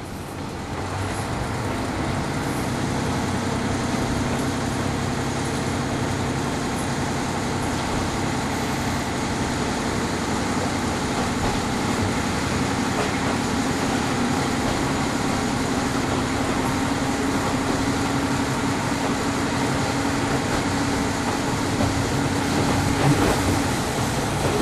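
DMF13HS six-cylinder diesel engine of a KiHa 38 railcar running under the floor, heard from inside the car over the engine, with the steady rumble of the train on the rails. It grows louder over the first couple of seconds and then holds a steady drone.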